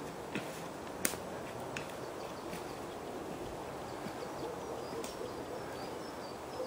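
Steady outdoor background noise, with a few soft clicks in the first couple of seconds and another around five seconds in, and faint short high chirps in the second half.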